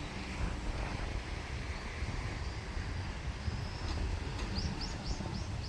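A steady low outdoor rumble, with a bird calling a quick run of short, high rising chirps near the end.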